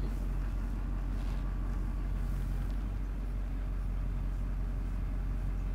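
Engine idling steadily, an even low hum with no change in speed.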